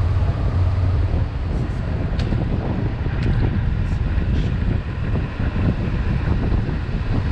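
Steady wind rush buffeting the microphone of a camera on a road bike descending at speed, heavy in the low rumble.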